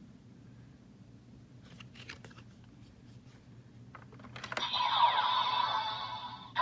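A few small plastic clicks from handling the Gotchard Driver toy belt, then about four and a half seconds in its electronic sound effect starts playing loudly through the toy's small speaker, with steady tones and falling glides.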